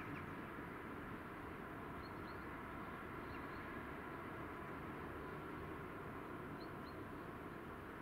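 Steady distant city hum heard from high up, with faint short high bird chirps coming in pairs a few times.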